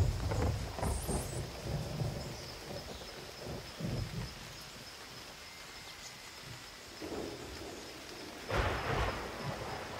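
Thunder rumbling in rolling peals: a loud one right at the start that rolls on for several seconds, and another about eight and a half seconds in.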